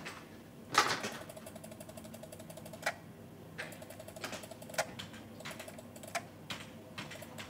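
Scattered sharp clicks from a computer's input controls being worked during digital dust-spot retouching, about a dozen in all, with faint rapid ticking between them.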